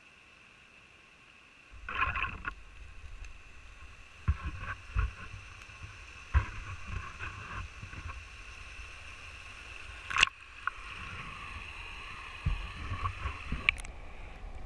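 Outdoor rumble of wind or handling on the microphone, starting after a short quiet spell, with scattered sharp knocks and cracks.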